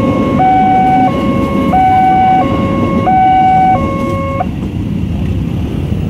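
Railroad crossing's electronic warning alarm sounding a two-tone alternating signal, switching between a higher and a lower tone about every two-thirds of a second, over the low rumble of a passing electric commuter train. The alarm stops about four and a half seconds in as the crossing clears.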